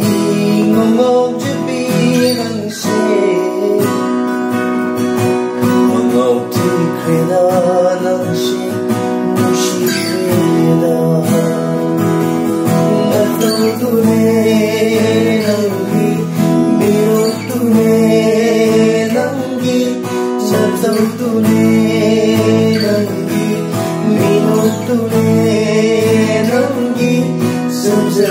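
Two acoustic guitars, one a Fender CD-60SCE, strummed together in a song, with singing over them.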